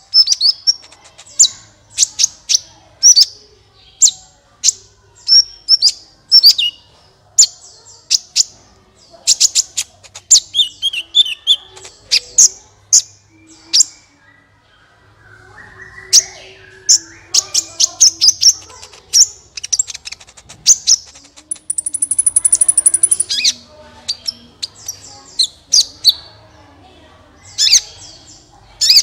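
A sunbird (the bird sold as 'kolibri' in Indonesia) singing: runs of sharp, high chirps in quick bursts, with a high, thin trill a little after the middle.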